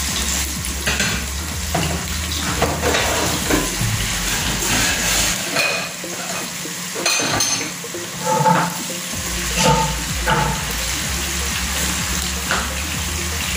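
Marinated fish sizzling as it fries in hot oil in a frying pan, with a metal utensil clicking and scraping against the pan as pieces are laid in, and a few short ringing clinks about two thirds of the way through.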